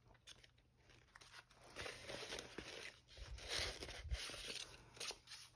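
Sheets of acrylic-painted paper rustling and crinkling as they are handled and leafed through. The rustle comes in uneven patches and is strongest between about two and four seconds in.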